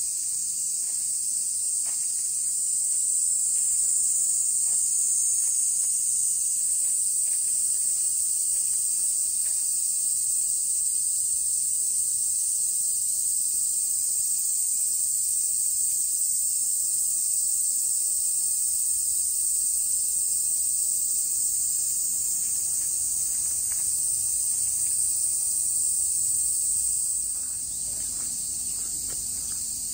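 A dense chorus of cicadas buzzing in the trees: one unbroken, high-pitched drone that eases slightly near the end.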